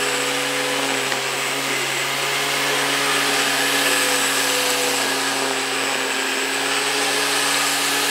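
Black & Decker corded electric string-trimmer mower running at full speed while cutting tall grass: a steady motor hum with a high whine, its pitch holding level with no bogging down.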